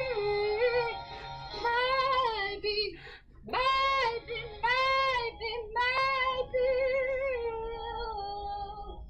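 A teenage girl singing into a handheld microphone: long held notes with vibrato, a short breath about three seconds in, and a last note held long and fading away near the end.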